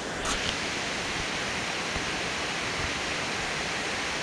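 Steady, even rushing noise of the outdoor surroundings, with a short rustle just after the start.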